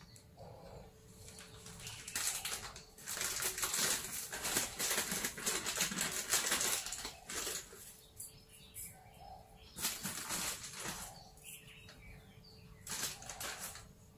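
Plastic packet crinkling and rustling as it is handled in the hands, in bursts: a long spell from about two seconds in to past seven seconds, then shorter ones around ten seconds and near the end.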